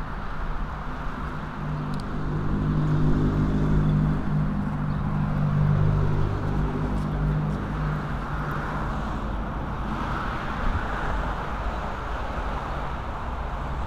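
A motor vehicle's engine hum swells a second or so in and fades away by about eight seconds, over steady street traffic noise and low rumble.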